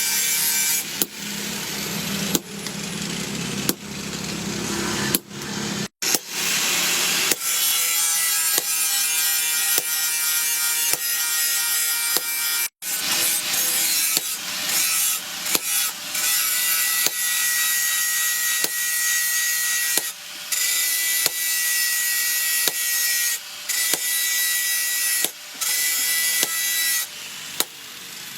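Steel from a chainsaw being cut: a loud, steady hissing grind, with a high steady whine in the second half, stopping and starting abruptly many times.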